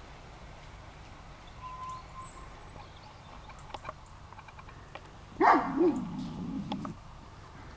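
A dog's voice: a sudden loud cry that starts high and drops quickly, then a lower wavering sound lasting about a second and a half, about two-thirds of the way in.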